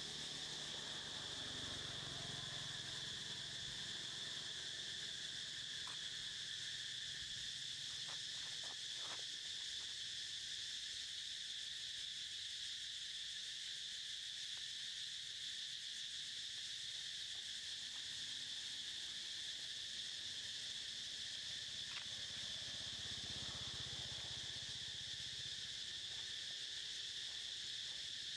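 Steady, high-pitched insect chorus droning without a break, with a few faint clicks now and then.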